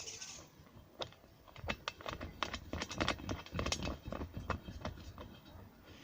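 Irregular run of clicks and light knocks from Uni-strut channel fittings (M8 bolts, spring nuts, washers) being handled and fitted by hand, thickest in the middle of the stretch.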